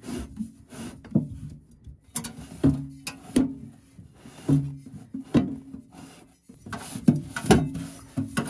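Steel Campingaz gas bottle knocking and scraping against its gas locker as it is wrestled into place and its fitting put on by hand: a series of irregular knocks, several with a brief low ring, with rubbing between them.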